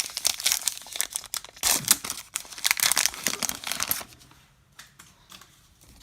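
A baseball card pack wrapper crinkling and tearing open: a dense run of crackles for about four seconds, then faint rustling.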